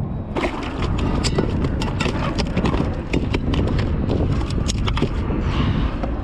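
A bluefish flopping on the plastic deck of a kayak: a rapid, irregular run of slaps and taps over a steady low rush, stopping about five seconds in.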